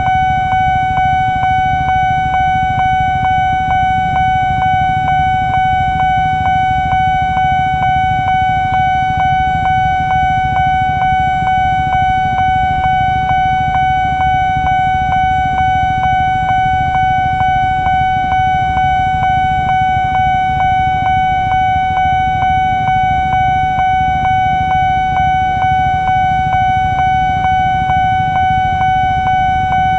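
Railway level-crossing warning alarm sounding continuously with the barrier down: a loud, steady, high electronic tone over a low rumble, the signal that a train is approaching.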